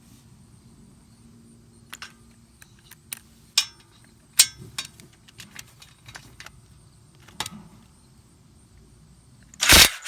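Scattered light metallic clinks of tools being handled at the brake caliper, then near the end a short loud burst of a power tool spinning a 7 mm Allen key socket to break loose a caliper guide pin.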